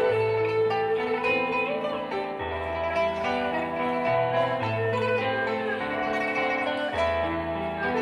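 Pipa plucking a quick melody over electric keyboard accompaniment with sustained bass notes.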